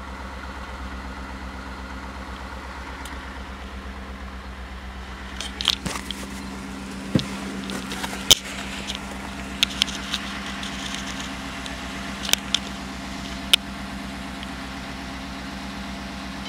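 2015 Ford F-150's 5.0 L Coyote V8 idling steadily with an even, low hum. From about five seconds in, scattered sharp clicks and scuffs sound over it.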